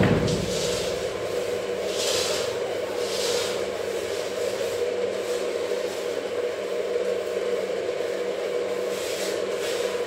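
Paintbrushes rubbing red floor paint onto a concrete floor in repeated scrubbing strokes, over a steady hum.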